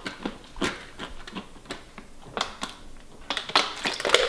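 Light, irregular clicks and crackles of small plastic things being handled, a plastic water bottle and pills, getting busier a little after three seconds in.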